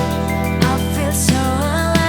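Live band music: a singer bending notes over held chords, a sustained bass note and drums.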